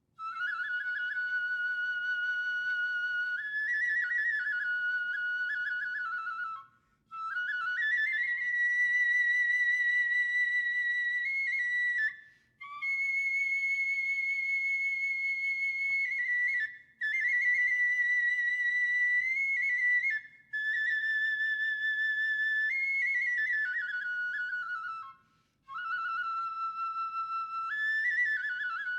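Solo Japanese bamboo transverse flute (kagura flute) playing long, high held notes in about six phrases with brief breath pauses between them, opening a kagura piece.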